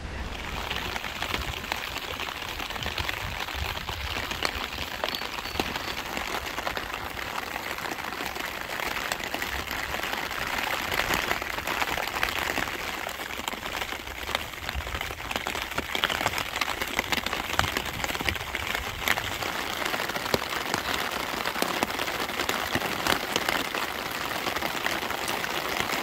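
Rain pattering on a car's windshield, heard from inside the car: a steady hiss of rain with many small, irregular ticks of drops striking the glass.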